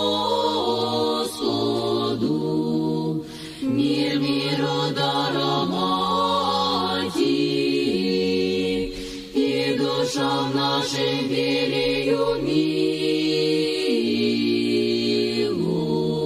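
Choir singing slow Orthodox church chant in long held chords that shift pitch every second or two, with two brief breaks between phrases.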